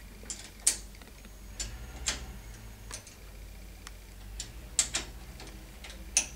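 Box wrench clicking on the lock nut of a bolt-through wheelchair wheel lock as it is tightened: about a dozen sharp metal clicks, unevenly spaced.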